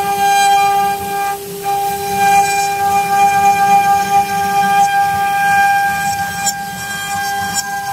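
Windcam CNC wood-carving router spindle running with a steady high whine as the bit cuts a relief into a wooden panel, dipping briefly about a second and a half in.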